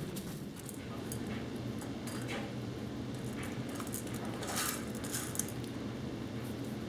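Light clinks and small clatters of hard objects being handled, a few at a time with short gaps, over a steady low background hum.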